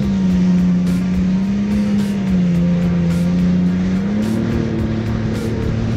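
Jet ski engine running at speed, with a steady drone that dips in pitch and then rises again near the end as the throttle changes, over the rush of water. A beat from background music runs underneath.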